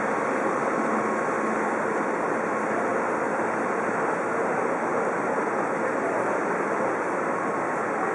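Steady, even rushing hum of a Cobrasma Frota C metro train standing at the platform with its doors open, a few faint steady tones running through it.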